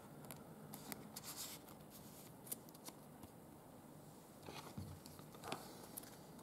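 Faint rustling and light clicks of trading cards being handled and shuffled, with two short bursts of louder rustling about a second in and again near the end.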